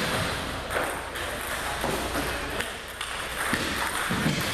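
Table tennis rally: the celluloid-type ball clicking off paddles and the table in quick, irregular ticks, with more ball strikes from neighbouring tables mixed in.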